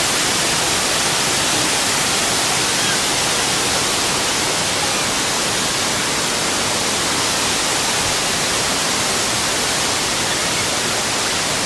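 Waterfall pouring over a rocky ledge into a creek: a steady, even rush of water.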